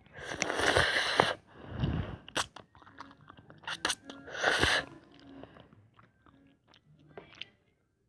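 A person eating ramyeon noodles close to the microphone: noodles slurped in two loud noisy pulls, about four seconds apart, with chewing and small clicks between.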